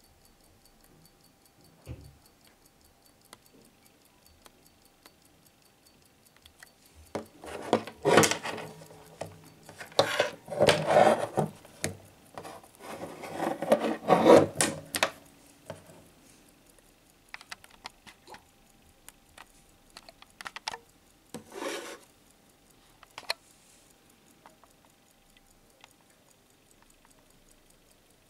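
Handling noise: a wristwatch and its leather strap being picked up, rubbed and shifted about on a wooden table, loudest in the middle, then a few light clicks. A mechanical watch ticks faintly at the start and again near the end.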